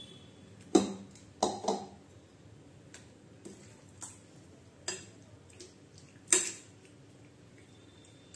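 A metal spoon knocking and clinking against a ceramic bowl while scraping in and stirring wet coriander paste, a handful of irregular sharp knocks, the loudest about a second in and again about six seconds in.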